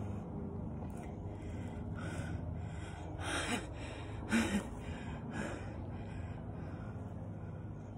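Close-up quiet breathing with two short, sharp breaths or stifled laughs about three and four seconds in, over a steady background drone from a running weed eater (string trimmer).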